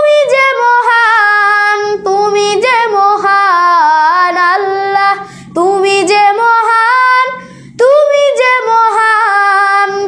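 A boy singing a Bengali Islamic song in praise of Allah (a hamd) as a solo voice, holding long notes that slide between pitches. He breaks briefly twice, a little past the middle.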